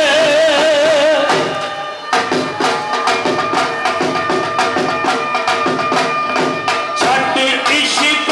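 Bhangra music. A held, wavering melody line carries the first second or so, then after a brief dip about two seconds in, a steady driving drum beat takes over.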